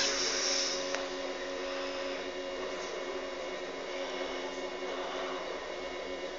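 Steady machine hum in a small room, holding several tones at once, with a faint single click about a second in.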